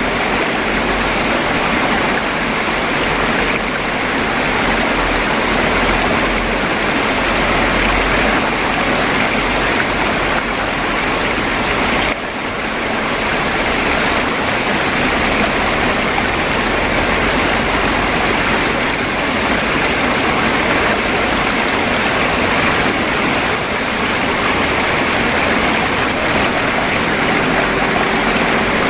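Stream water flowing and babbling steadily in a dense, even rush, with a brief dip in level about twelve seconds in.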